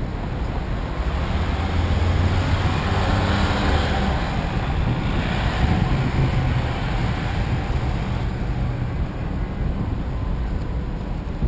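Road traffic at a busy city intersection: engines and tyres of passing vehicles, with a low engine hum swelling between about two and six seconds in, then easing off.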